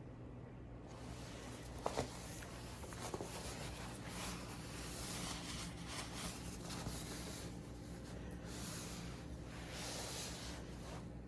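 Rustling and rubbing handling noises in a small room over a steady low hum, with a couple of sharp clicks about two and three seconds in.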